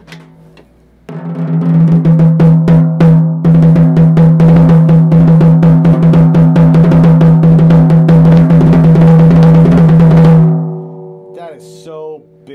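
Mapex Armory Exterminator snare drum, a 14x6.5-inch birch/walnut shell, struck with drumsticks. A few hits lead into a fast, dense run of strokes lasting about seven seconds over a strong ringing tone. The drum then dies away, with a few softer taps near the end.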